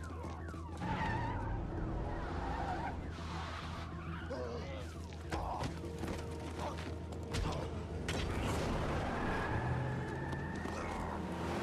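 Action-film sound mix after a street gunfight: a low steady drone under scattered clicks and clatter, with a rising siren-like tone in the second half.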